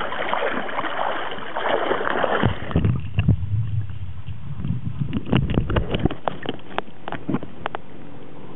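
Water splashing and sloshing around a camera held at the waterline as a Welsh corgi dog-paddles. About three seconds in the camera goes under and the sound turns to a muffled underwater rumble with many sharp clicks and knocks.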